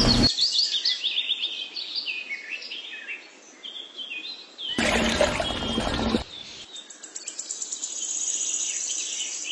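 Birds chirping and calling in quick short notes. About five seconds in, a small motor runs for about a second and a half, then cuts off and the birdsong goes on.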